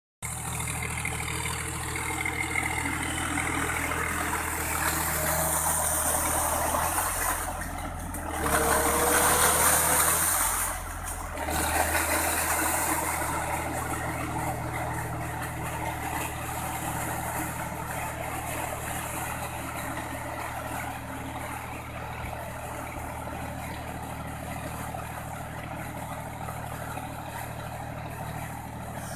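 John Deere tractor's diesel engine running steadily under load as its iron cage wheels churn through a flooded paddy, with water and mud splashing. The sound swells about eight seconds in, eases off near eleven seconds, and grows fainter as the tractor moves away.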